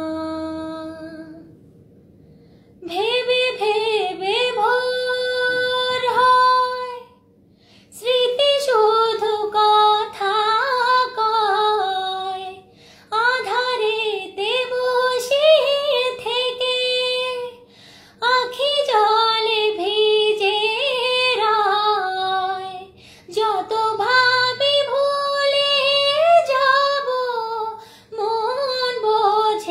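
A young woman singing a Bengali song unaccompanied, in about six long, held phrases with brief pauses for breath between them.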